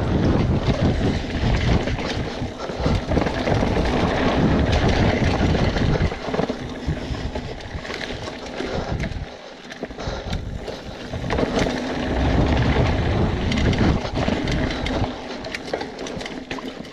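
BMC Twostroke hardtail mountain bike riding fast down a rough, technical trail. Wind buffets the microphone, and the bike and tyres over the rough ground make many small clattering knocks.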